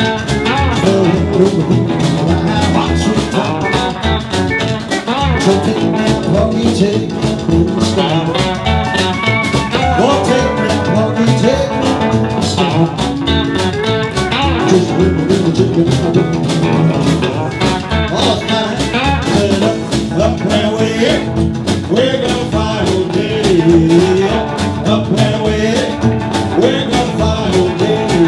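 Rockabilly band music with a steady beat: guitar and a man singing.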